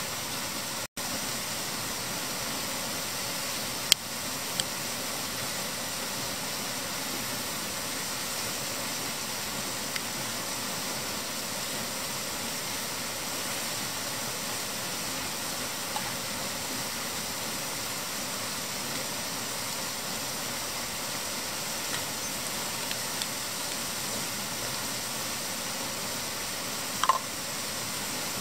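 Steady rushing of flowing river water. Near the end comes a short metallic clink as an aluminium pot is set on the mini Trangia stove.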